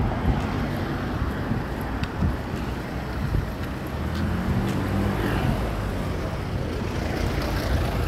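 Busy city-street ambience: a continuous rumble of motor traffic with scattered small knocks and clicks. A vehicle engine's hum swells up nearby about halfway through, then fades back into the traffic.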